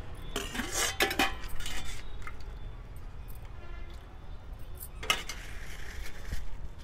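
Steel ladle clinking and scraping against stainless-steel serving pots as curry is dished out: a cluster of clinks in the first two seconds, then another clink about five seconds in.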